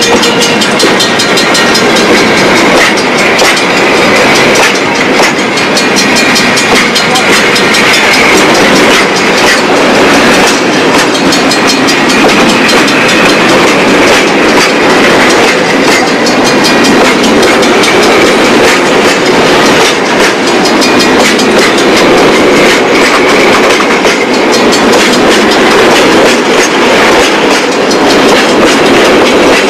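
A freight train's wagons rolling past close by and loud, the wheels making a steady run of clicks over the rail joints.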